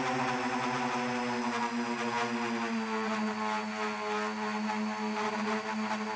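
A 7-inch FPV quadcopter's motors and propellers whir steadily in flight, close to the onboard camera, with a thin high whine above them. The pitch drops slightly about three seconds in as the throttle eases.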